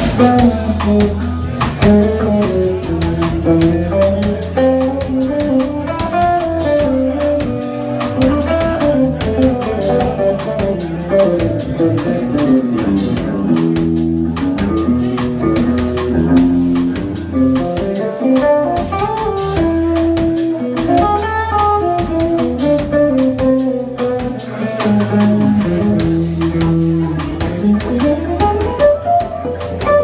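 A live instrumental jazz-funk band playing: electric guitar, organ and drum kit, with a steady low bass line and sustained organ chords under moving melodic lines.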